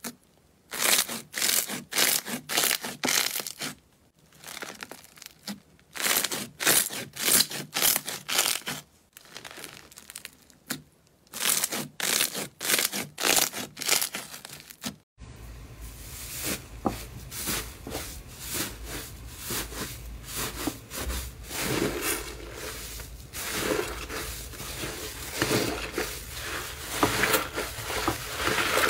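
Hands pressing and pulling a grainy blue slime, which crackles in quick bursts of pops. About fifteen seconds in it cuts to purple slime being kneaded in a glass bowl: a more continuous squishing and crackling over a low steady hum.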